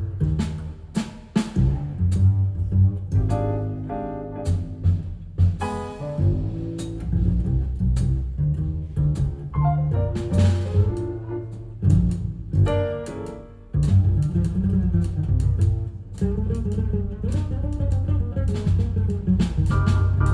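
Recorded music played through Avalon hi-fi loudspeakers, led by a deep double bass with sharp percussive strikes. The music dips briefly about two-thirds of the way in, then carries on at full level.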